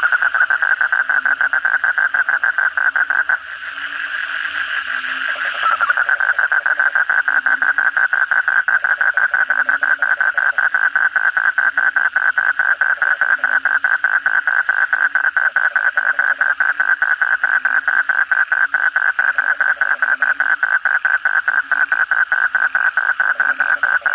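Asian common toad calling: a long, rapid pulsed trill that breaks off about three seconds in and starts again a couple of seconds later. A deeper frog call repeats steadily behind it.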